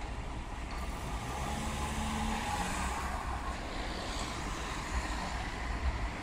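Road traffic: a car drives past through the junction, its engine and tyre noise swelling and fading, over a steady low rumble of street traffic.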